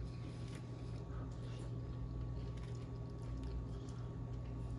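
Faint eating sounds: soft clicks and squishes as a ranch-covered chicken wing is handled and chewed, over a steady low hum.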